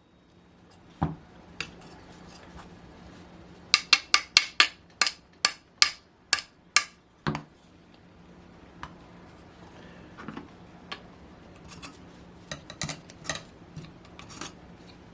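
Metal tools and parts of a model glow engine clinking as it is worked on by hand: a knock about a second in, then a quick run of about ten sharp, ringing metallic taps at roughly three a second, then softer scattered clicks and rattles. A faint steady hum runs underneath.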